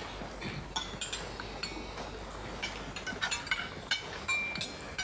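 Cutlery clinking against plates and glasses at a dinner table: scattered light clinks and taps, some with a brief ring.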